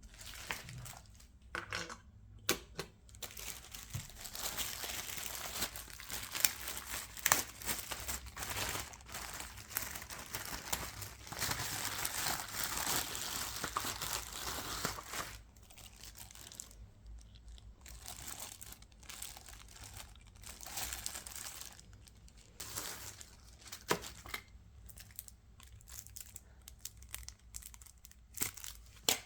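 Packaging being crinkled and torn open by hand: about ten seconds of dense, continuous crinkling, then sparser rustles and a few sharp clicks.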